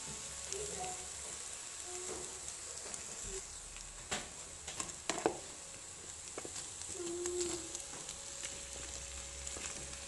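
Onion, green pepper and tuna frying gently in oil in a non-stick pan, a soft steady sizzle. A few knocks and scrapes of the stirring utensil against the pan come around four to five seconds in.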